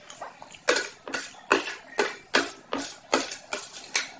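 Close-miked chewing of a mouthful of food, in steady rhythmic chews about two and a half a second, starting a little under a second in.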